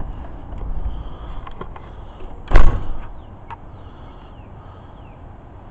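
A door shutting with one loud thud about two and a half seconds in, with lower rumble and a few light knocks before it.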